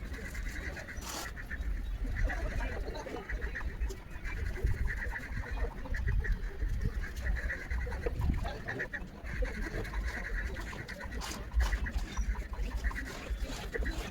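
Birds calling in repeated short chirps over a steady low rumble.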